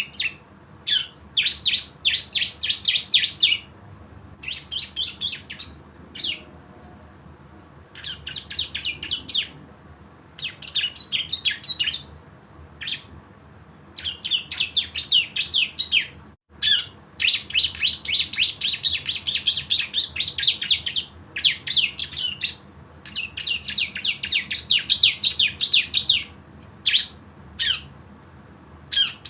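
Bar-winged prinia (ciblek) singing its rapid machine-gun 'ngebren' trill: bursts of fast, high, sharp notes a second or two long, separated by short pauses.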